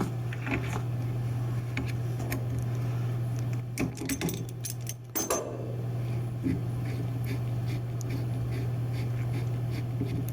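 Metal clinks and clicks of hand tools working the tail housing of a metal cone penetrometer, with a denser cluster of clinks about four and five seconds in, over a steady low hum.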